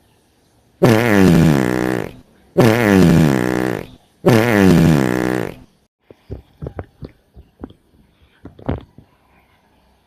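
A recorded fart sound played three times in a row, each about a second and a half long with a falling pitch and identical each time, followed by a run of short clicks and taps.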